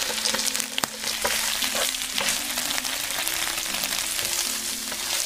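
Small loaches sizzling and crackling in an oiled frying pan as red chili sauce is poured over them and stirred with a spatula. Soft background music plays under it.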